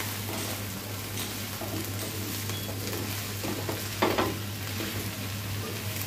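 Sliced okra sizzling in oil in a frying pan while it is stirred and turned with a plastic slotted spatula, with a louder knock of the spatula against the pan about four seconds in.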